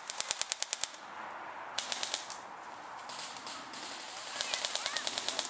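Airsoft guns firing rapid full-auto bursts of sharp cracks at about ten shots a second: a burst of about nine shots at the start, a shorter one about two seconds in, and a longer burst of about a dozen shots near the end.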